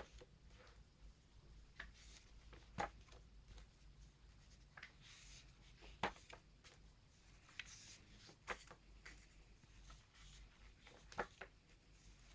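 Pages of a thick hardcover comic book being turned by hand: faint paper swishes and several crisp page snaps, one every second or two.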